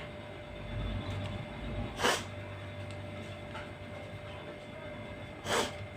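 A person sniffing sharply through the nose twice, about three and a half seconds apart, over a faint low rumble.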